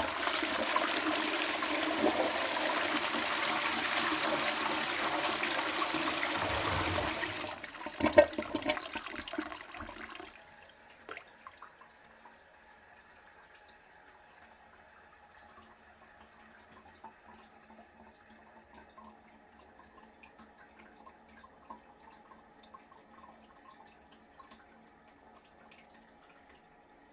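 Toilet flushing: a loud rush of water for about seven seconds, then gurgling as the bowl drains, ending about ten seconds in. After that the tank refills with a quiet steady hiss of water through the fill valve.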